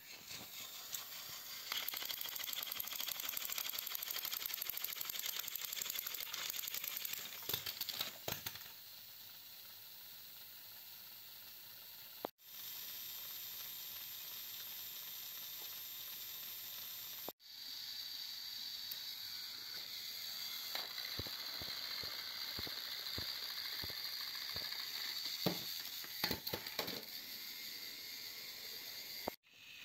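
Small battery-powered motors and plastic gearboxes of toy Thomas & Friends engines whirring steadily as the engines push against each other. Scattered clicks and knocks come from the plastic toys bumping and tipping, most of them around a quarter of the way in and in the later part.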